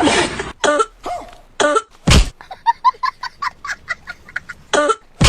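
A person in a coughing fit: several loud separate coughs, then a quick run of short hacking coughs, then more loud coughs near the end.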